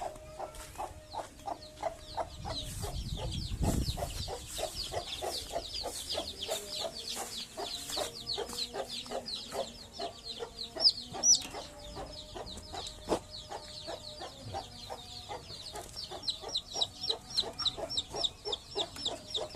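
Chickens in a coop: many chicks peeping in rapid, high, falling chirps, with hens clucking under them. A dull low bump comes about four seconds in.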